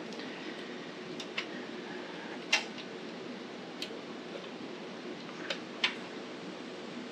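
A few scattered light clicks and taps from hands working small parts at a small engine's carburetor and throttle linkage, the sharpest about two and a half seconds in, over a steady background hum.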